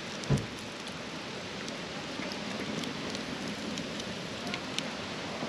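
Campfire crackling: a steady hiss with scattered sharp pops and crackles, and a soft thump just after the start.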